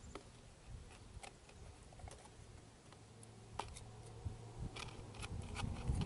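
Faint scattered clicks and light plastic taps from handling a clear homemade minnow trap as bait is dropped into it, most of them in the second half. A low rumble builds near the end.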